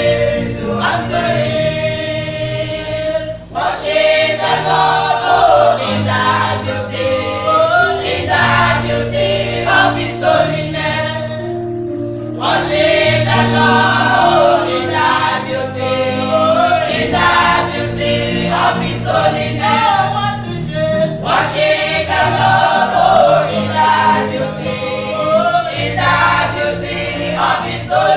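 A choir singing a gospel song with instrumental accompaniment and a steady bass line.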